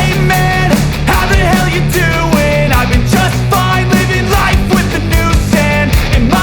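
Loud background music in a rock style, with a driving drum beat and a melodic lead line.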